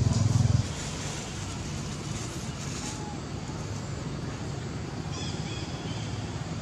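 A motor engine running loudly, cutting off sharply about half a second in, leaving steady outdoor background noise.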